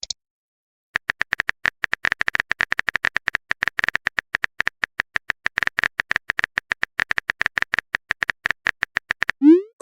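Typing sound effect: quick, irregular keyboard-like clicks, several a second, starting about a second in. A short rising tone comes near the end.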